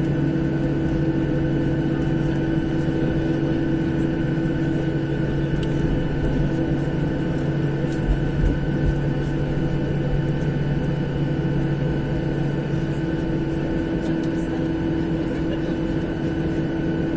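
Jet airliner cabin noise from a passenger seat: the engines' steady hum, a few fixed tones over a continuous rush of air, holding the same pitch throughout.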